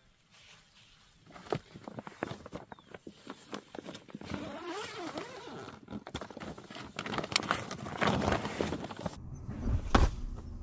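Irregular rustling, clicks and knocks, like gear being handled and moved about, with a heavier thump near the end.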